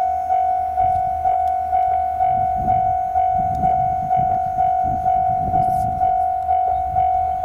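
Railway level-crossing warning bell ringing: one steady, fairly high electronic tone pulsing evenly about twice a second, the signal that a train is approaching the crossing.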